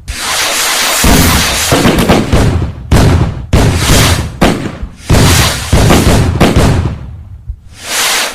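Fireworks exploding: a string of loud bangs, roughly one a second and sometimes two close together, each dying away over a second or so.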